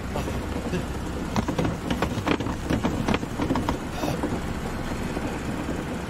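Cartoon sound effect of a room shaking: a steady low rumble, with a run of rattling knocks and clatters from about one and a half to four seconds in.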